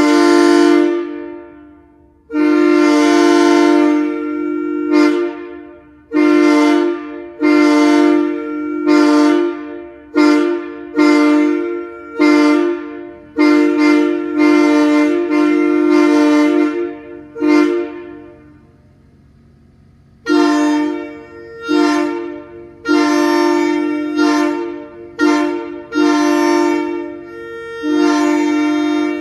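Multi-chime locomotive air horn sounding a steady chord in a series of blasts: two long ones, then many short ones, with a pause of about two seconds two-thirds of the way through.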